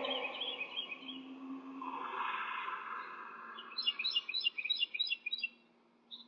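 A bird chirping: faint high chirps at first, then a quick run of repeated high chirps, about six a second, a little past halfway, over a faint steady background hum.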